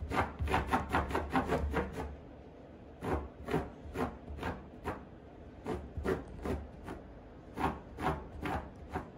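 Rasping scrapes of an Akita dog working at a woven rug. There is a quick run of strokes in the first two seconds, then single scrapes about every half second.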